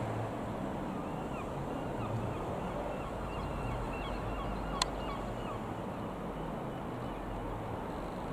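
AgustaWestland AW169 helicopter flying past overhead: a steady rumble of its rotor and twin turboshaft engines. Faint chirping bird calls come and go around the middle, and there is a single sharp click about five seconds in.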